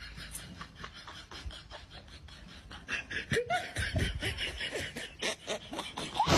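Rapid, choppy bursts of laughter-like vocalising with a few short pitched squeals, getting louder about halfway through.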